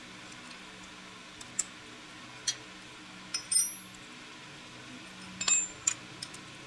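Small metal parts and tools clinking and tapping in a handful of separate strikes. The two loudest, about halfway through and near the end, ring briefly.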